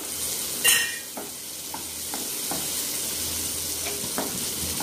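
Urad dal, shallots, tomato and dried red chillies sizzling in oil in a nonstick pan while a spatula stirs them. There is a louder scrape a little under a second in, then light taps of the spatula against the pan.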